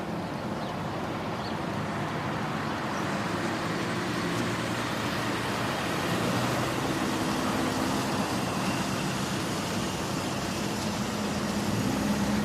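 Steady road-vehicle noise, a continuous rumble of traffic or a running engine with a low hum.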